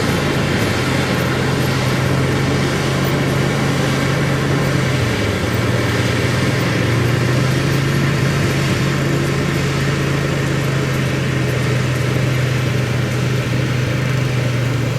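Skid steer engine running steadily as the machine drags a toothed leveling attachment over rough ground; the engine note dips briefly about five seconds in, then picks back up.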